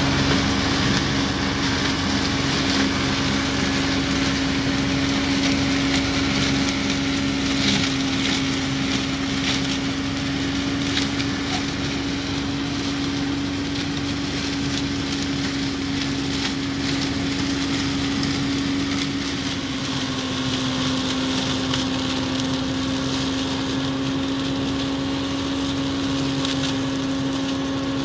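Yanmar FX215 compact diesel tractor running steadily under load while its PTO-driven flail mulcher chops standing maize stalks, a steady droning whine with scattered crackling as stalks are shredded. The whine drops slightly in pitch about twenty seconds in.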